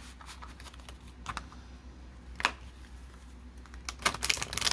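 Tarot cards being handled and shuffled: a few separate crisp snaps, then a quick run of them near the end.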